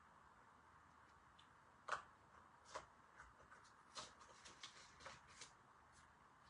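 Paint scraper scraping dried paint off a painted sign in a run of short, scratchy strokes, starting about two seconds in with the first the loudest. The paint lifts where wax was laid under it, distressing the finish.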